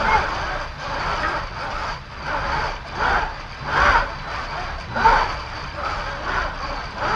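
Six-axis motion simulator platform running, its electric leg actuators whirring in repeated surges about once a second over a steady high hum.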